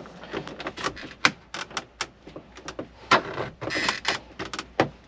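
Plastic radio trim bezel on a Chevy Silverado dash being pried off by hand. Its retaining clips click and snap as they release, amid creaking and scraping of the plastic, with a longer scrape just before the 4-second mark.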